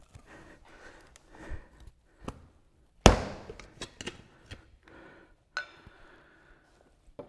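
A tyre with its inner tube being forced back over the wheel rim by hand: rubbing and small clicks of rubber and metal, one loud sharp knock about three seconds in, and a short squeak a little later.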